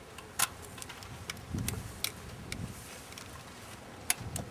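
A handful of sharp, irregular clicks and a couple of soft knocks as a rider handles the controls of a parked motorcycle whose engine is not running.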